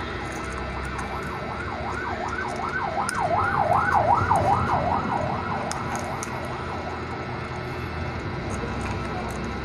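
An electronic siren warbling up and down about three times a second. It swells to its loudest around the middle and then fades away.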